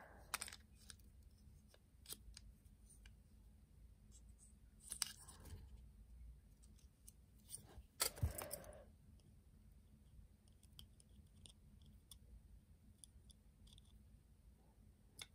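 Faint clicks and light handling noises of small plastic parts being fitted together on a toy electric train's body shell, over near silence. The clearest click comes about eight seconds in.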